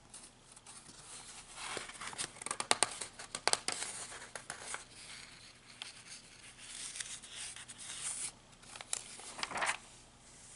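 Magazine pages rustling and crinkling under a hand as a page is turned, in several irregular bursts with sharp paper crackles.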